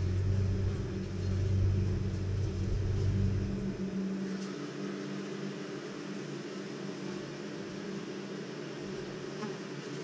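Buzzing of a colony of honeybees at their nest in a tree trunk, a steady hum. A deeper low rumble lies under it for the first three and a half seconds and then stops.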